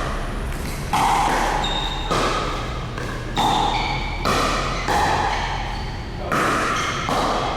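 Pickleball paddles striking a plastic pickleball in a rally: a string of sharp pops, about one a second, each ringing briefly.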